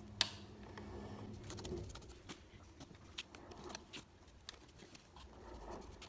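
Faint, scattered clicks and small taps as a screwdriver works the terminal screws on the back of a plastic electrical socket faceplate while the live and neutral wires are fitted. The sharpest click comes just after the start.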